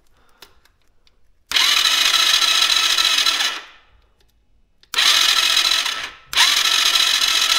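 Tao Tao quad's electric starter cranking the engine in three bursts of a second or two each, the engine turning over without firing: there is no spark at the plug.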